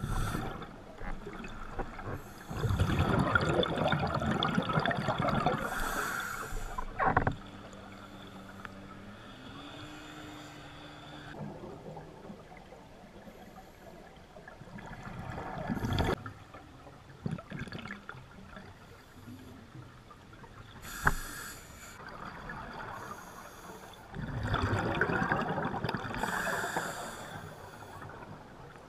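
Scuba diver breathing through a regulator underwater: two long bursts of exhaled bubbles, one a few seconds in and another near the end, with quieter inhaling between and a few sharp clicks.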